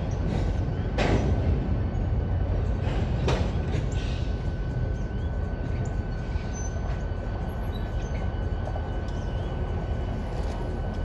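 Norfolk Southern diesel locomotives moving slowly through a rail yard, their engines giving a steady low rumble. Two sharp clanks come about one and three seconds in, and a thin steady high squeal sets in about four seconds in.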